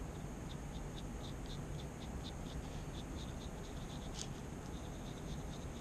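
A thin metal pick stirring a small dab of black-tinted five-minute epoxy on cardboard: faint, quick ticking at about four or five ticks a second, with one sharper click about four seconds in, over a steady hiss.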